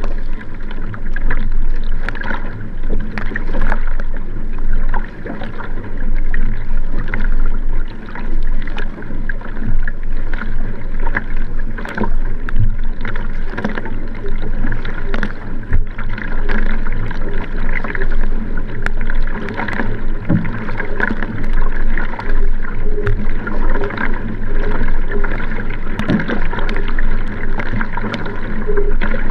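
Water rushing along the hull of a Nelo Vanquish 3 racing kayak under way at race pace, with the splash of each paddle stroke entering and leaving the water, heard close to the waterline from the rear deck.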